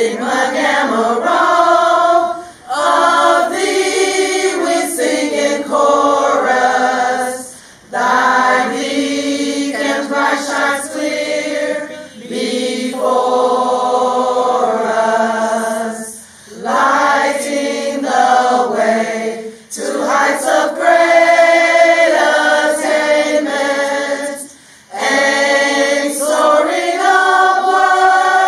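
A group of women singing together without accompaniment, in phrases broken by short pauses for breath.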